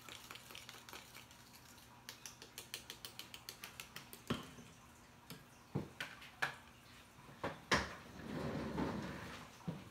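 A bowl of hair lightener being stirred, the mixing tool clicking rapidly against the bowl's sides, then several separate sharp knocks of the tool against the bowl, the loudest near eight seconds in. A short rustle follows near the end.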